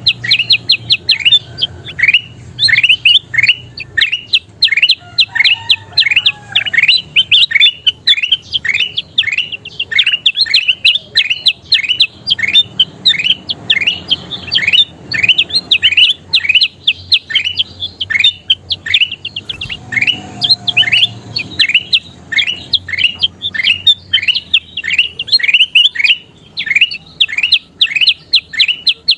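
Kutilang emas, a bulbul, singing non-stop: a quick, unbroken run of short downward-sweeping chirps, about three or four a second.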